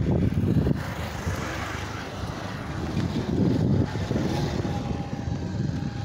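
Wind buffeting the phone's microphone on a moving motorbike, over the bike's running and road noise: a rough low rumble that eases slightly about a second in.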